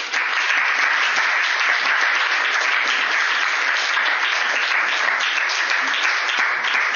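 Audience applauding steadily at the end of a talk, a dense patter of many hands clapping that breaks out at once.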